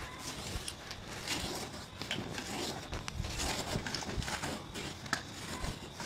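Knife working the hide off a cow carcass: scattered short scrapes and ticks of the blade against skin and fat.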